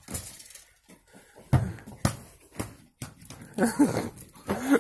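Dog playing with a ball on a tiled floor: a few sharp knocks through the first half, then a short whine near the end.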